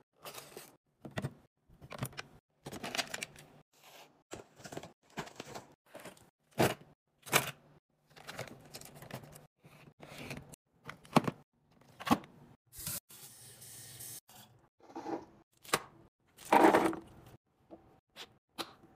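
Snack packaging handled and torn open, with packaged snacks and food set into clear plastic bins: a run of separate rustles, crinkles, taps and plastic clicks. The loudest burst comes near the end.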